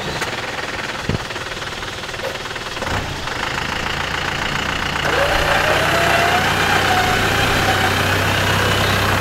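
4x4 pickup's engine running as the truck is pulled up a steep rutted dirt slope on its winch cable, with a single knock about a second in. From about three seconds in a steady low drone builds, and from about five seconds it grows louder with a higher wavering whine.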